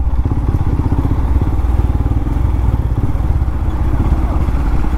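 Motorcycle engine running steadily while riding along the road, with a dense, even low rumble of rapid firing pulses.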